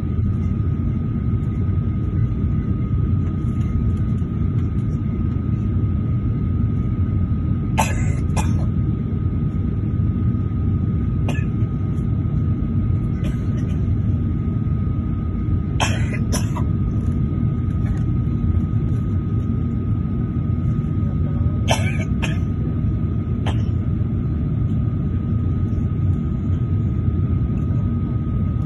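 Airliner cabin noise while taxiing: a loud, steady low rumble with a thin steady high whine. It is broken by several short sharp sounds, some in pairs, about 8, 16 and 22 seconds in.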